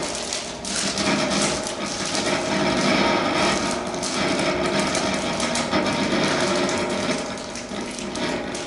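Live trio of electric guitar, alto saxophone and drums playing a dense, noisy passage: fast clattering strikes over held, droning tones, at a steady loudness.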